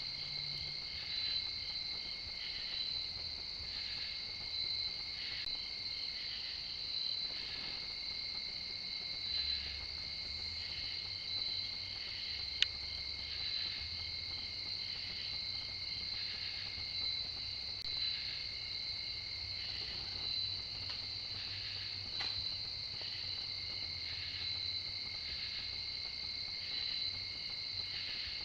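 Night insect chorus of crickets: a steady high trilling with a second, lower continuous tone, and a pulsed chirping call repeating about once a second over it. One sharp click about halfway through.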